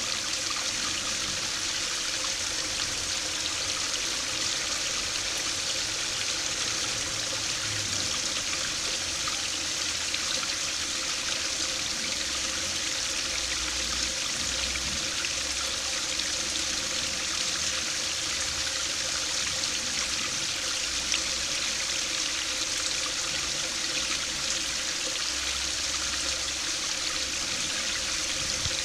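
Small stream of water spilling over a low concrete weir and splashing steadily into a shallow pool below.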